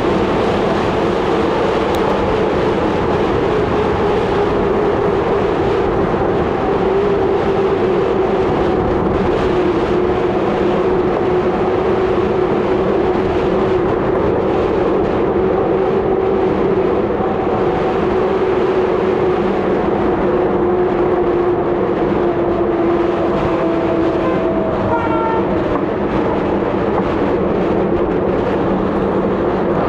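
Merida bicycle freewheeling fast down an asphalt road: a steady rush of wind on the microphone with a tyre hum whose pitch slowly sinks.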